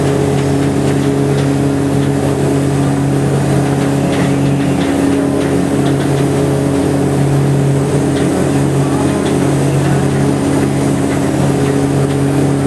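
Ferry boat's engine running steadily while under way, a constant low drone with a few fixed tones and no change in speed.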